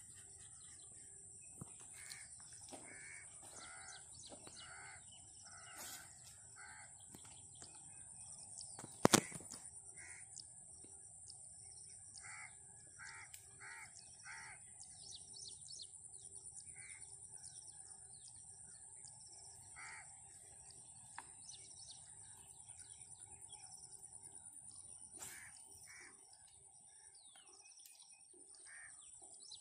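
Birds calling outdoors in short, repeated calls over a steady high-pitched whine, with one sharp knock about nine seconds in.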